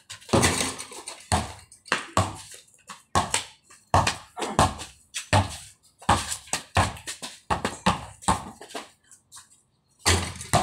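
A basketball bouncing on a concrete court: a string of sharp, irregular thuds about once a second as it is dribbled and shot, with a loud strike near the end as it hits the hoop.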